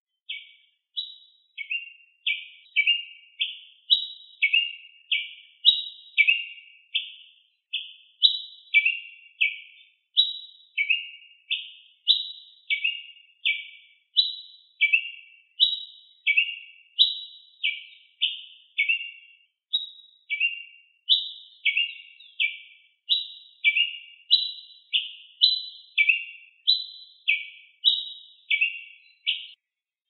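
Ruby-crowned tanager (tiê-preto) singing a long run of short, sharp chirp notes, about two a second, each dropping in pitch in a quick step.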